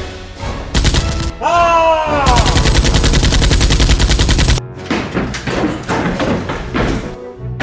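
Movie-style gunfire sound effects: a few single shots, a short falling tone, then about two seconds of rapid automatic fire, followed by scattered shots.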